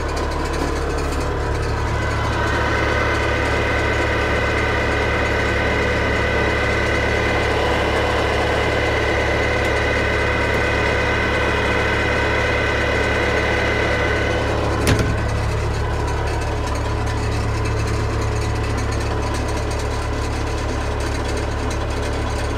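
Yanmar CT-65 track tractor's diesel engine running steadily. A steady high whine rides over it from about two seconds in until a single sharp knock about fifteen seconds in.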